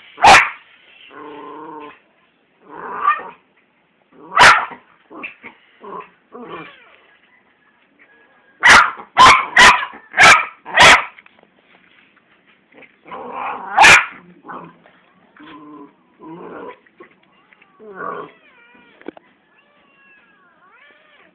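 A miniature schnauzer and a kitten play-fighting: short sharp yaps, with a quick run of five about nine to eleven seconds in, and rough growly sounds between them. Near the end come high, wavering kitten mews.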